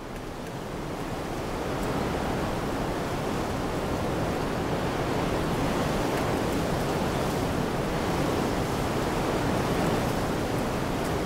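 Steady rushing noise of wind and water, fading up over the first two seconds and then holding level.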